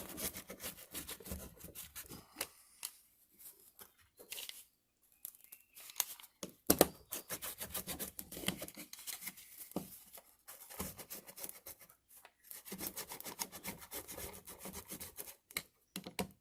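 Plastic-wheeled spline roller pressing rubber spline and screen mesh into the groove of a window-screen frame: irregular rubbing and scraping with scattered sharp clicks and knocks, stopping and starting.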